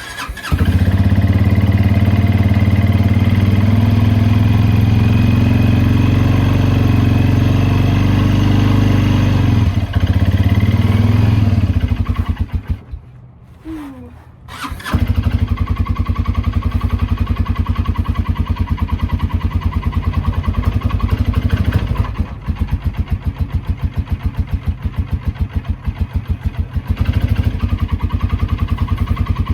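Kymco MXU 300 ATV's single-cylinder engine on a cold start with the choke pulled. It runs loud and steady, dies down about twelve seconds in, then runs again from about fifteen seconds with a fast, even beat. The stumble is typical of this cold-natured engine when cold.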